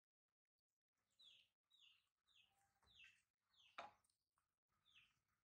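Faint, high chirping calls repeated about twice a second, each falling in pitch, with one sharp tap about four seconds in.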